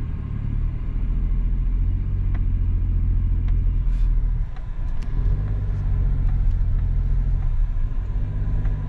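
A car driving, heard from inside: a steady low engine and road rumble that dips briefly about halfway through and then picks up again.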